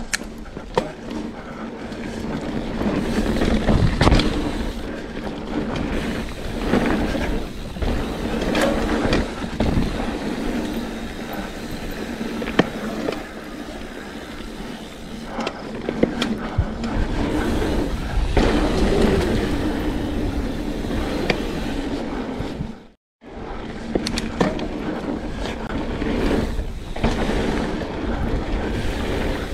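Mountain bike ridden on a dirt singletrack trail: tyres rolling over packed dirt, with rattles and knocks from the bike over bumps. The sound drops out briefly about three quarters of the way through.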